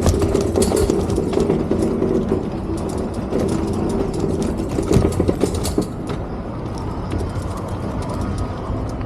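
Rail vehicle running close by, a steady hum with a whining tone and rapid clicking from the wheels; the whine and clicks die down after about six seconds.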